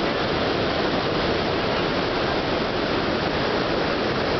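The Devil's Throat cascade of Iguazu Falls: a huge volume of water plunging over the falls, heard as a dense, steady rush with no let-up.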